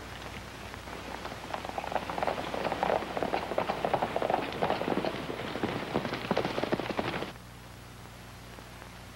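Hoofbeats of several horses galloping, a dense clatter that builds over the first couple of seconds and cuts off suddenly about seven seconds in.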